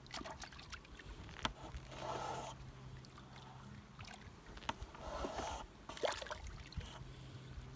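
A long stick stirring a dark humic acid brew of leonardite in a plastic drum: faint swishing strokes through the liquid, the clearest about two and five seconds in, with light knocks of the stick against the drum.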